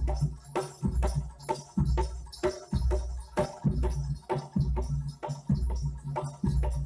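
Live East Javanese jaranan gamelan music in a steady rhythm. A deep low note sounds about once a second, with sharp drum and metal percussion strokes between the beats.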